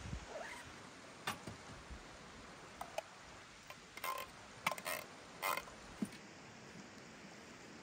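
Faint clinks and taps of cooking gear, a small metal pot and spoon handled at a portable camp stove, a few sharp ticks bunched about four to five seconds in, over a soft steady hiss.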